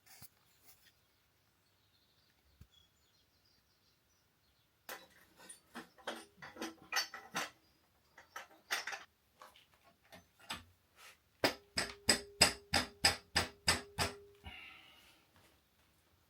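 Metal parts and tools knocking and clattering, then a fast, even run of about a dozen sharp clicks lasting about three seconds.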